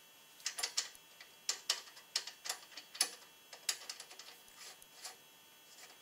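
Irregular light metal clicks, about a dozen, as the spindle nut is turned onto the floating rear axle spindle of a 2002 Silverado 2500HD by hand. They start about half a second in and die out about a second before the end.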